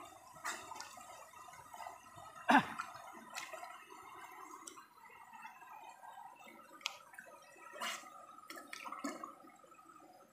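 Shallow river water sloshing and splashing around swimmers wading and diving, with scattered small splashes and one sharp, louder splash about two and a half seconds in.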